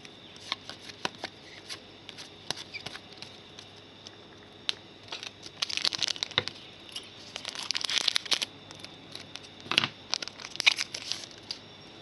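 Shiny wrapper of a Donruss Soccer 2015 trading-card pack being torn open and crinkled, with small clicks of cards being handled in between. The crinkling comes in a few short bursts, the loudest around the middle and again near the end.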